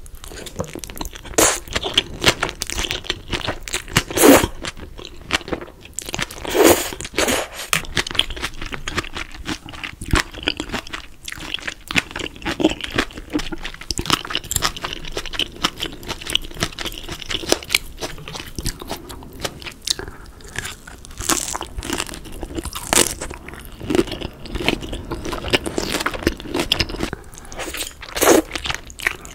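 Close-miked chewing and crunching of crispy battered fried pork (tangsuyuk), a run of irregular crunchy bites, with a few louder crunches standing out, around 4 and 7 seconds in and again a little after 20 seconds.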